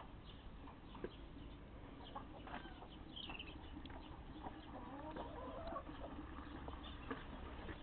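Chickens clucking quietly, with a few short high bird chirps among the clucks.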